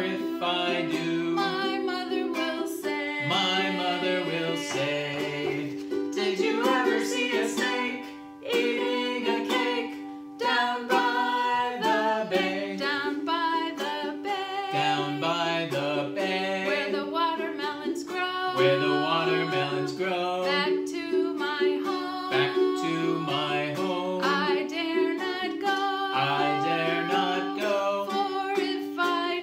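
Ukulele strumming steady chords under voices singing a children's echo song, each line sung and then sung back.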